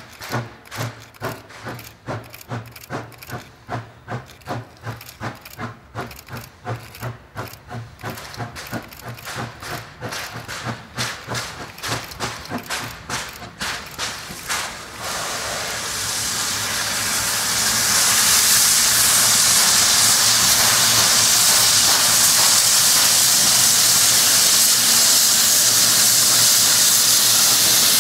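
Steam locomotive hauling a passenger train, its exhaust chuffing in a steady beat of about two to three beats a second as it works toward the listener. About halfway through, the beats give way to a loud, steady hiss of steam, louder still a few seconds later as the engine draws close with steam blowing out low beside its wheels.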